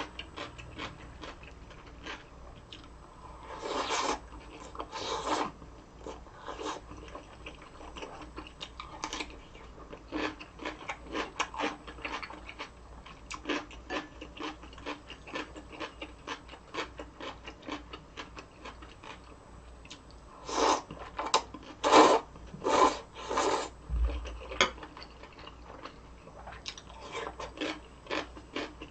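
A person chewing crunchy food right at the microphone: a constant run of small, irregular crisp crunches. Louder clusters of chews come around four to five seconds in and again near the twenty-one to twenty-four second mark.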